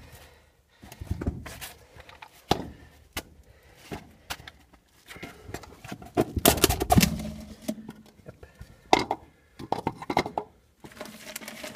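Handling a PVC-pipe logbook tube: irregular knocks and scrapes of the plastic pipe against rock, with crinkling and rustling of the plastic bag sealing its end, loudest about halfway through.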